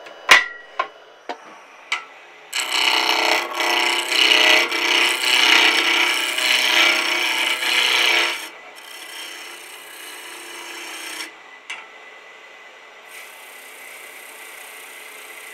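A turning tool cutting into a spinning wood blank on a lathe, loud from about two and a half seconds in until about eight seconds, then lighter and quieter. It begins with a few sharp clicks.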